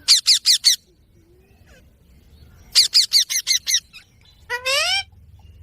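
Indian ringneck parrot giving quick runs of shrill calls: about five at the start and about eight in the middle, then one longer, lower wavering call near the end.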